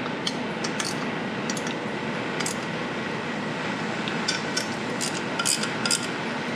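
Hand ratchet clicking in short, irregular runs as 8 mm bolts are tightened on a small engine, over a steady background hiss.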